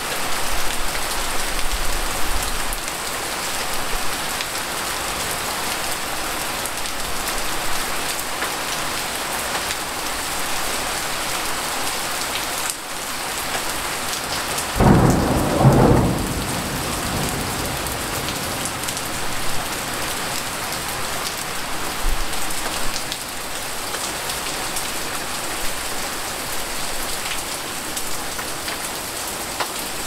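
Heavy rain falling steadily in a city. About fifteen seconds in, a loud clap of thunder breaks out and lasts a second or two.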